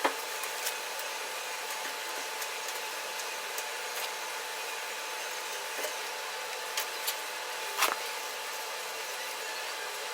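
Light metal clinks and knocks of brake drum and wheel bearing parts being handled and fitted onto the front spindles, the loudest knock about eight seconds in, over a steady hiss.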